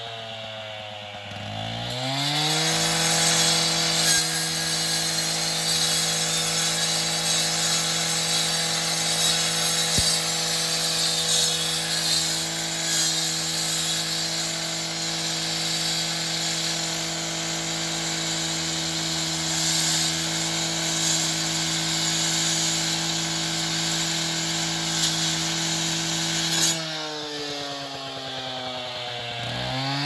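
The two-stroke engine of a Stihl TS 800 cut-off saw is revved up to full throttle about two seconds in and holds a steady high pitch while its diamond wheel grinds through a reinforced concrete pillar under water. Near the end the engine drops back off the cut, then revs up again.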